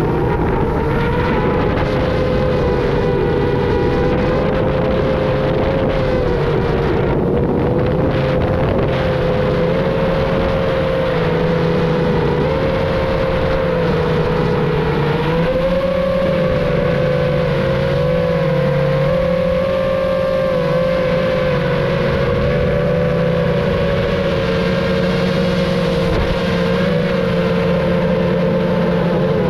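FPV racing drone's brushless motors and propellers whining steadily in flight, the pitch drifting slightly up and down with the throttle, over a low rushing noise.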